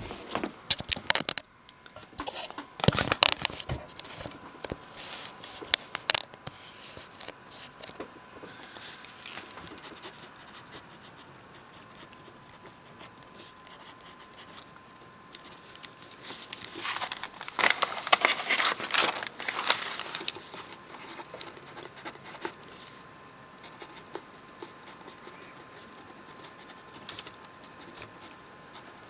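Fingers and fingernails tapping, scratching and rustling on the paper pages of a spiral-bound notebook, close to the microphone, in bursts of quick clicks: a busy stretch in the first few seconds and another from about halfway through.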